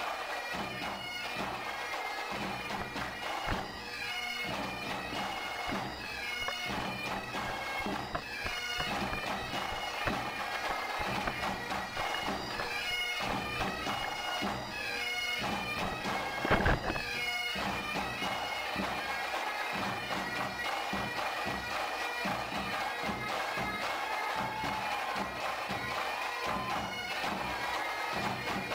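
Bagpipes playing a tune over a steady drone. A single sharp knock sounds about two-thirds of the way through.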